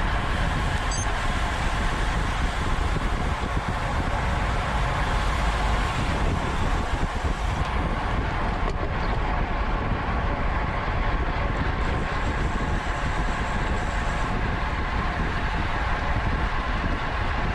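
Wind rushing and buffeting over the microphone of a camera on a racing bicycle at speed, steady throughout.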